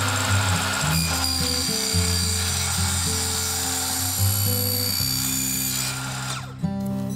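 Compound miter saw running and cutting, a high whining hiss over background music with a steady bass line; the saw noise stops suddenly near the end.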